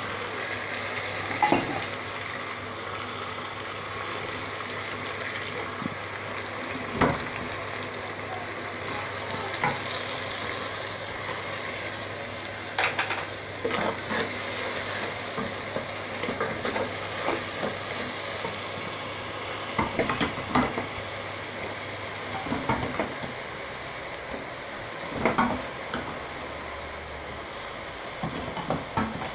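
Steady sizzling in an aluminium pot on a gas stove, as cardamom pods and then orange-coloured rice for zarda are stirred with a wooden spoon. Scattered knocks of the spoon against the pot come through, more of them in the second half.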